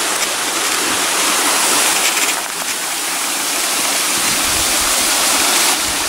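Stream water rushing over rocks, a steady hiss.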